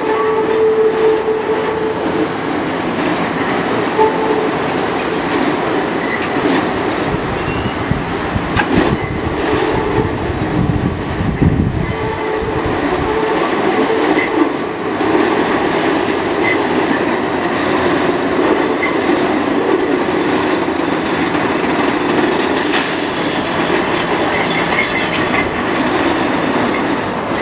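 New York City subway train running slowly around a curve on elevated track: steady wheel-and-rail rumble with clacking over the rail joints and a held wheel squeal at the start that fades after about a second, and a deeper rumble swelling midway.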